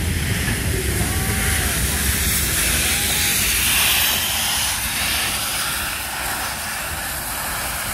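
A steam train passing close by: the carriages' wheels rumble over the rails, then a streamlined 38 class steam locomotive goes by with steam hissing from its cylinder drain cocks. The hiss is loudest about four seconds in.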